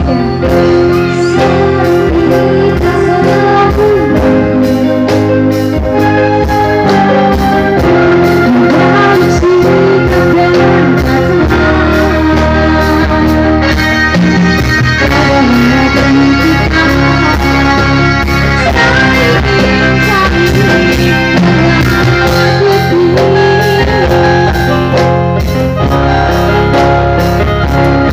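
Loud live band music: electronic keyboards playing over a steady beat from hand-struck drums, without pause.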